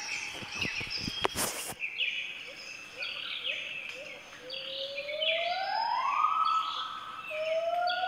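Gibbon calls: a long whooping note that glides steadily upward about halfway through, and a shorter, steadier note near the end. Quick high bird-like chirps run throughout, and there are a few sharp clicks in the first two seconds.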